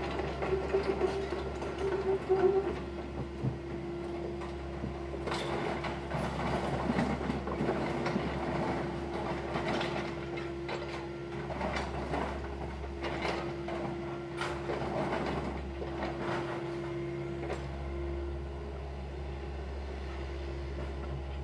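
Excavator breaking up a wooden house: its engine runs with a steady hum and a held tone that fades near the end, while repeated sharp cracks, knocks and clatters of wood and debris come through, thickest in the middle.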